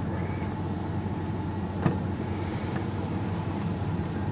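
Old Ford truck's engine running steadily as it rolls along at low speed, heard from inside the cab as a low hum with road noise. A single sharp knock sounds about two seconds in.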